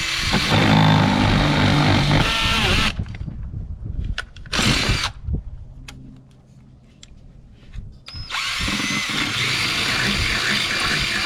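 Power drill boring through aluminium angle, running in bursts: about three seconds of drilling, a brief burst a couple of seconds later, then a steady run from about eight seconds in.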